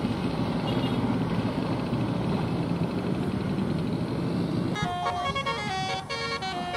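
A vehicle engine running, then about five seconds in a bus's Basuri 'telolet' musical horn starts playing a quick melody of stepped, changing notes.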